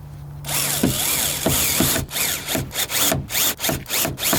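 Power drill run in a string of short trigger squeezes, its motor whine rising and falling with each burst; it starts about half a second in.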